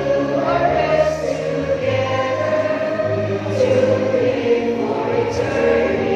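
Large group of graduates singing a slow college hymn together in chorus, holding long notes that change pitch every second or so over a steady low accompaniment.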